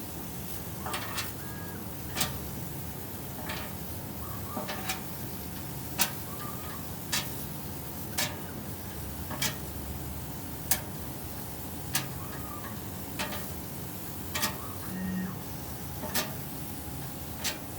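Two-head laser fabric cutting machine running: a steady hum, a sharp click about once a second, and short whirring tones as the cutting heads move.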